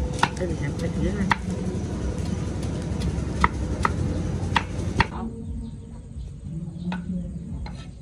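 Knife cutting kernels off corn cobs on a stone slab: about eight sharp, irregular knocks as the blade strikes the stone.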